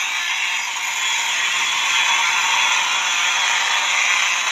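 Simplex 4903-series fire alarm horns sounding continuously with a loud, steady tone. The horn is not mounted on a back box, which the owner says makes it sound poor.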